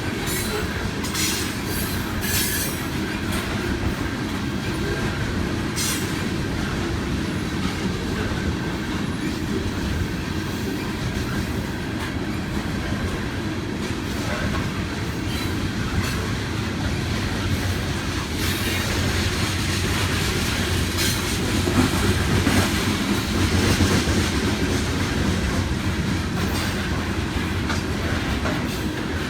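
Railroad cars of a CSX freight train rolling past: a steady rumble of steel wheels on rail with scattered sharp clicks, growing a little louder about two-thirds of the way through.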